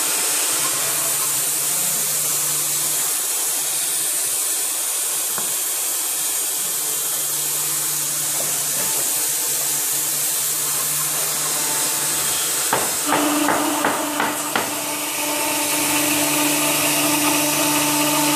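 A CNC router setup running with a steady airy hiss over a low hum. About two-thirds of the way through comes a quick run of sharp knocks, after which a steady mid-pitched tone joins the hiss.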